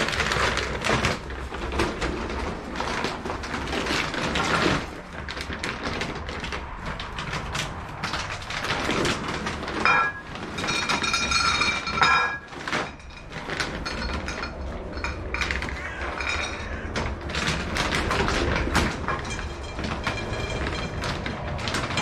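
Dry dog kibble being handled and poured from a plastic food bag into a bowl: dense irregular rattling and crackling, with a short high squeak twice near the middle.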